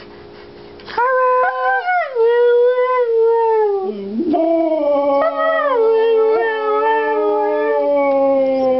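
Two Siberian huskies howling together. One long howl starts about a second in, and a second, lower howl joins about four seconds in, the two overlapping in a drawn-out duet.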